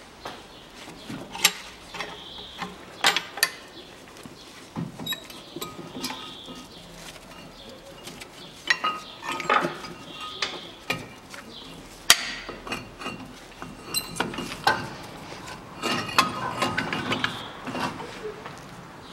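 Irregular metallic clinks, knocks and taps of a cast brake caliper being handled and fitted back over the front brake disc, some strikes ringing briefly.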